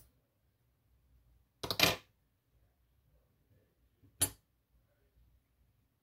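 Small metal objects clinking on a hard work surface while a pin-tumbler lock is taken apart: a short rattling clatter about two seconds in, then a single sharp clink about four seconds in.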